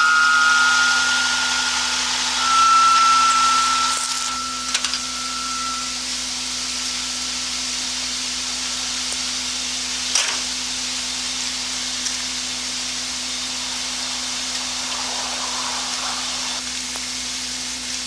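Steady hiss with a constant low hum, a few short high whistling tones in the first several seconds, and a sharp click about ten seconds in.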